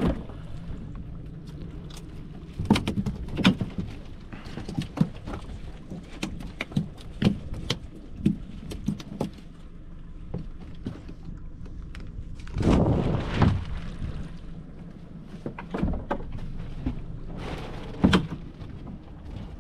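Gear being handled in a small open boat while a fishing net is hauled in: repeated knocks and thumps against the hull over a low steady hum, with a longer rough rustling stretch about two-thirds of the way through and a shorter one near the end.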